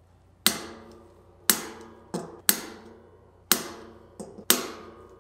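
Adjustable torque driver clicking over at its set torque on 6-bolt disc brake rotor bolts: five sharp clicks about a second apart, each with a short metallic ring, and two fainter clicks between them.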